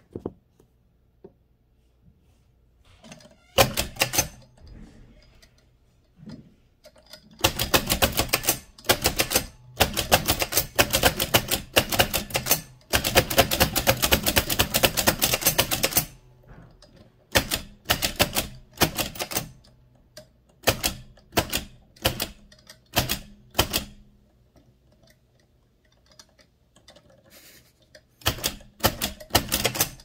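1925 AEG Mignon 4 index typewriter being typed on: mechanical clacking in bursts of rapid clicks, a run of separate clacks at about two a second in the middle, and another quick burst near the end.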